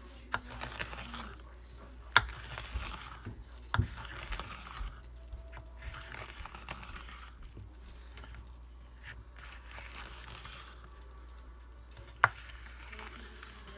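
A kitchen knife slicing through raw jalapeño peppers on a cutting board: crisp crunching cuts, with sharp taps of the blade striking the board about two seconds in, near four seconds, and near the end.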